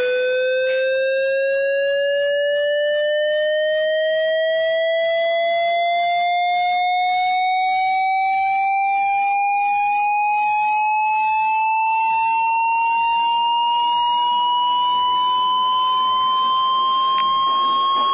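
A single synthesized tone slowly and evenly rising in pitch by a little over an octave, with faint higher overtones above it: a tension-building riser on a film soundtrack.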